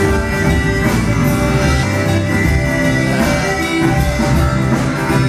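Rock music with electric guitar, bass and drums and a steady beat.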